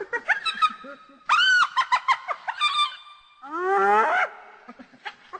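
Hyenas calling: a rapid run of short chattering calls, a loud call that rises and falls in pitch about a second in, and a long upward-gliding whoop shortly before the end.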